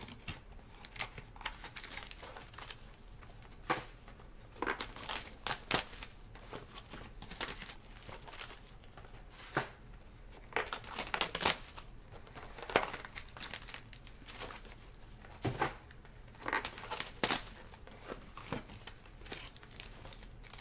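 Foil and plastic wrappers on trading-card boxes being torn open and crinkled by hand, in irregular crackles with a few louder tears.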